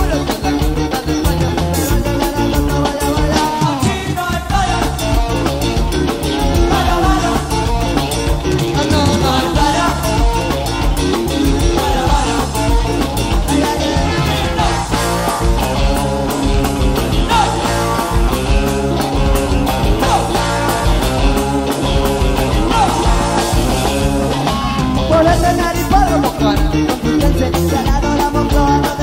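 Live recording of a rock band playing: electric guitar, bass guitar and drum kit, with singing.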